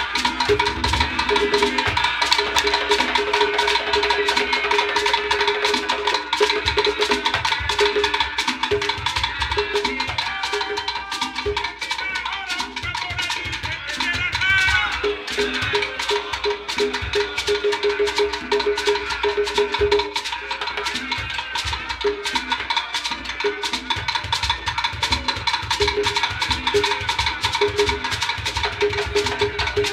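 Live Cuban rumba: hand drums playing interlocking rhythms over a dense, steady pattern of wooden clicks and rattles.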